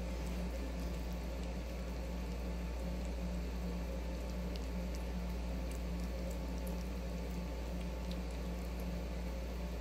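Two kittens eating minced raw duck: wet chewing and smacking with faint small clicks, over a steady low hum.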